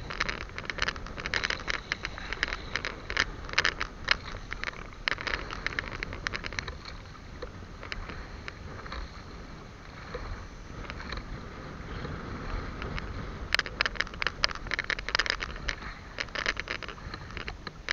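Small outrigger boat on choppy open sea: a steady low rumble with irregular splashes and crackles of water and wind against the hull and microphone.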